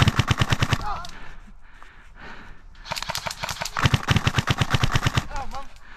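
Airsoft gun firing two rapid full-auto bursts: a short one of about a second at the start, then a longer one of about two seconds starting about three seconds in, with fainter scattered shots between.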